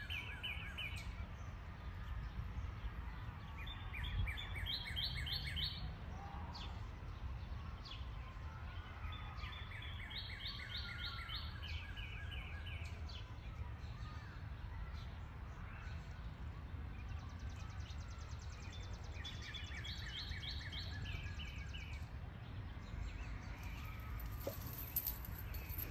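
A songbird sings short phrases of quick repeated notes, four times, over a steady low outdoor rumble.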